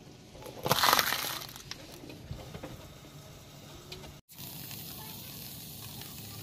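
A car tyre rolling over a green bell pepper stuck with toothpicks and crushing it: a loud crunching squelch about a second in, then a few small cracks. After a cut about four seconds in, a steady hiss.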